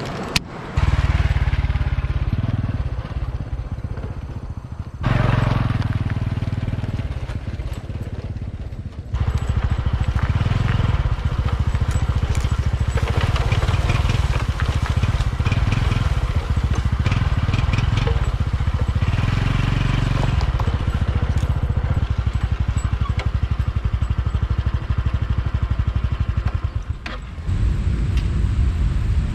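Honda Super Cub's small single-cylinder engine running on the move, with heavy wind rumble on the microphone. The rumble comes in suddenly about a second in and rises and falls several times.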